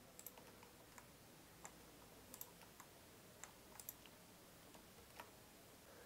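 Faint computer mouse clicks, about a dozen at irregular intervals, over near silence.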